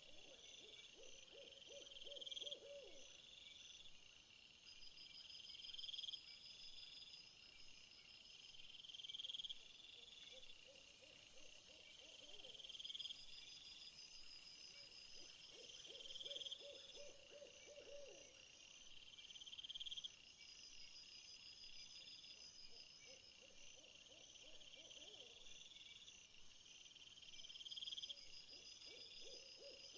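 Night-time nature ambience, faint. Insects chirp in repeating phrases about every two seconds, with a higher steady buzz that swells in the middle. A low trilled animal call comes roughly every five seconds.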